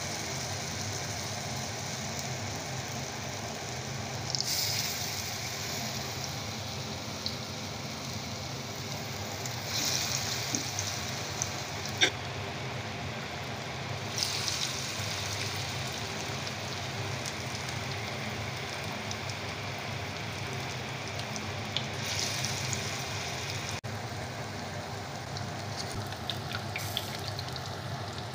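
Grated bottle gourd and gram-flour batter fritters deep-frying in hot oil in an iron kadhai: a steady sizzle that flares up several times as fresh handfuls of batter are dropped into the oil. There is a single sharp tick about twelve seconds in.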